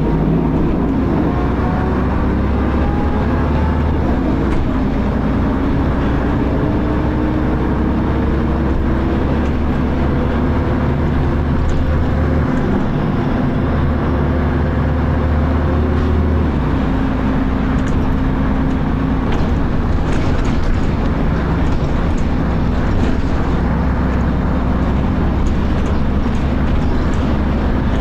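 Dennis Arrow double-decker bus heard on board, its engine and ZF automatic gearbox running under way. The gearbox whine climbs in pitch over the first several seconds as the bus gathers speed, then holds steady over a low engine drone, with a few light rattles later.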